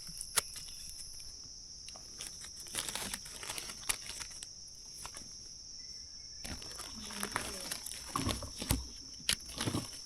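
Steady high-pitched drone of forest insects, over irregular crackling and rustling of dry leaf litter and twigs, with a few sharp clicks.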